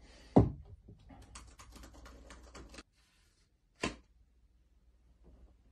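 A loud thump, then quick clicking of typing on a laptop keyboard for about two seconds. A second sharp knock follows a little before the four-second mark.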